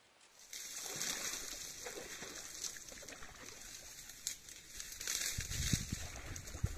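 Wind hissing through dry reeds, starting about half a second in, with gusts buffeting the microphone from about five seconds in.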